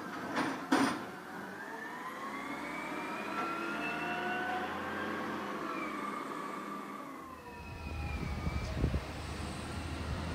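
A siren wailing in the distance, its pitch slowly rising and falling. From about seven seconds in it gives way to a heavy diesel truck's low engine rumble with scattered knocks as the truck approaches.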